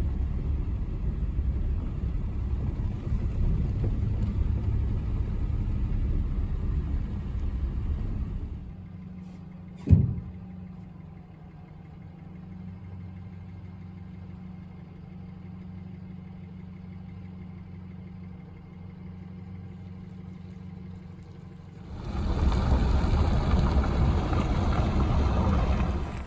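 Truck driving: a loud low road-and-engine rumble, which drops to a quieter steady hum with a low drone after about eight seconds, broken by one sharp knock about ten seconds in, then rises to a loud rumble again near the end.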